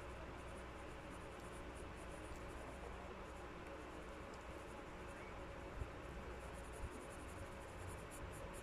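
Graphite pencil scratching faintly on sketchpad paper in short, repeated light strokes, denser near the end, over a steady hiss.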